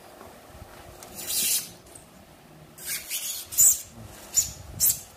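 A hand-pushed PI cutter blade slicing through a pre-insulated duct panel's foil-faced foam, making scratchy, hissing strokes. There is one longer stroke about a second in, then a cluster, and shorter, quicker strokes in the second half.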